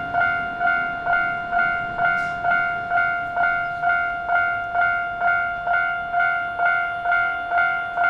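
Japanese railway level-crossing warning bell ringing, an even, repeated ding of about two strikes a second, each note fading before the next: the crossing is signalling that a train is approaching.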